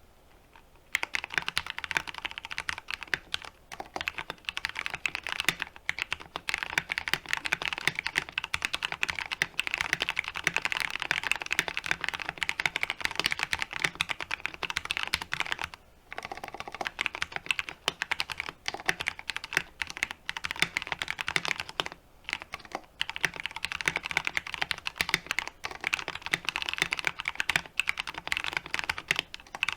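Fast typing on a 60% mechanical keyboard with Cherry MX Brown tactile switches lubed with Superlube a year earlier, in a weighted aluminium case with PBT keycaps: a dense run of keystrokes starting about a second in, with two short pauses around the middle.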